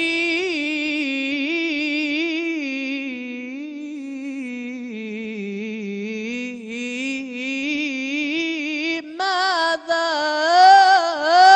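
A male munshid sings an Islamic religious hymn (inshad) solo into a microphone, drawing out one long melismatic phrase with continuous ornamented turns. The line sinks low around the middle, then climbs and swells loudest near the end.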